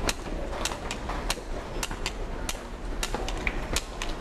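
A white cane's tip tapping on stone stair steps during a climb, a sharp click about every two-thirds of a second, over a steady low hum.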